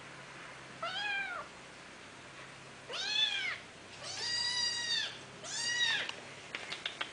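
Young feral kitten meowing four times, high-pitched calls that each rise and fall, the third the longest. A few light clicks follow near the end.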